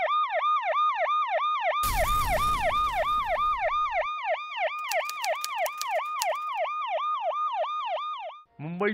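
A siren yelping in quick falling sweeps, about four a second, that cuts off suddenly near the end. About two seconds in, a rush of noise with a low rumble joins it for about two seconds, and a little later a short run of faint ticks.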